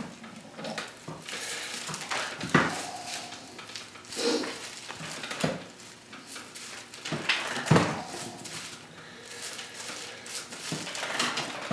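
Handling noise from hand-tying a broom: broomcorn straw and twine rustling, with scattered light knocks and clicks. Three sharper knocks are spread through the stretch.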